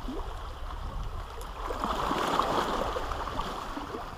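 Small sea waves washing and splashing against the boulders of a rock revetment, swelling louder about halfway through, over a low rumble.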